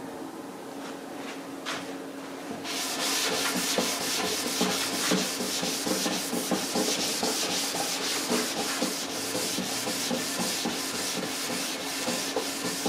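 Gray non-woven abrasive pad rubbed by hand over a wooden tabletop, scuffing the dried shellac sealer. The scrubbing gets louder about three seconds in and goes on in rapid back-and-forth strokes.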